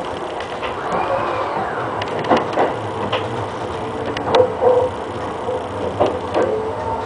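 E217 series electric train running through a station, heard from the driver's cab: steady whining tones from the traction motors and inverter, one rising and falling about a second in, with irregular sharp clicks of the wheels over rail joints and points.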